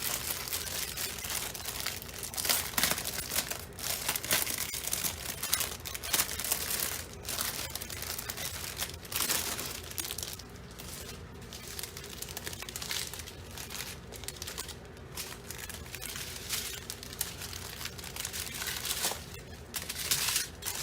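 Small plastic bags of diamond-painting drills crinkling and rustling as they are handled and sorted, with irregular rustles and small clicks throughout.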